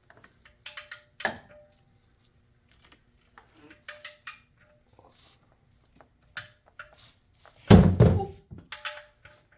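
Scattered metal clicks and knocks of hand tools as a new oil drain plug is tightened with a torque wrench, with a heavy thunk about eight seconds in.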